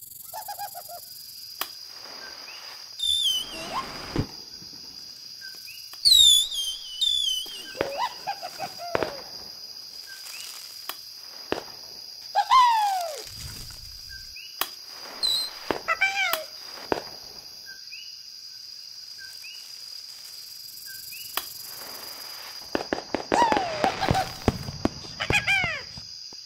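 Night forest ambience: a steady high insect drone with bird calls that swoop down in pitch every few seconds, coming thickest near the end, and scattered small clicks and snaps.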